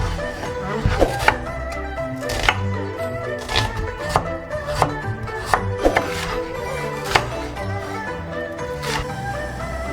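Knife chopping ingredients on a cutting board: a dozen or so sharp, unevenly spaced strokes over background music.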